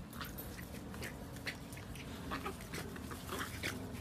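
Small dogs scuffling over a ball on grass: faint rustling and scrabbling with a few soft whines.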